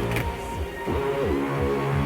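Background electronic music between the sung lines of a song: held synth chords with bass notes that slide down in pitch about a second in and again near the end.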